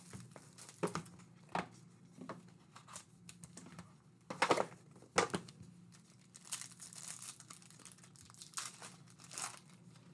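Foil trading-card pack torn open and crinkled by hand, in a string of short sharp rips and crackles, loudest about four to five seconds in.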